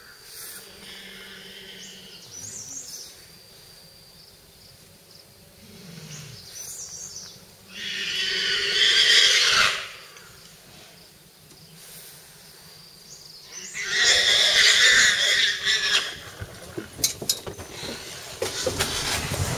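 Cries from a tiger's attack on a wild boar: two loud, harsh cries of about two seconds each, a few seconds apart, with fainter cries before them.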